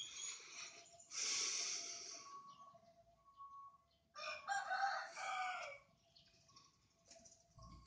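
A rooster crowing once, about four seconds in, for under two seconds. A brief rush of noise comes about a second in, and faint short bird calls repeat in the background.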